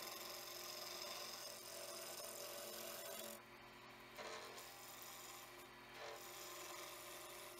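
Freshly sharpened 3/4-inch Robert Sorby skew chisel cutting a wooden pen blank spinning on a lathe, a steady shearing hiss as the edge rounds the blank. The cutting sound drops away briefly twice, about three and a half and five and a half seconds in.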